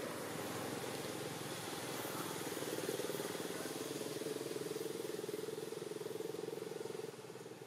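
An engine running steadily, a low hum with a fast even pulse. It grows stronger about two seconds in and drops away near the end.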